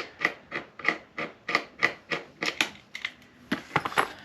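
Hand tool working metal in rhythmic rasping strokes, about three a second, turning into a few sharp metallic clicks near the end.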